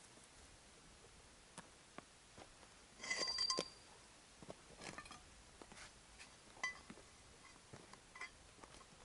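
A metal bar striking hard, stony ground: a quick run of ringing metallic clinks about three seconds in, then scattered lighter clicks and knocks.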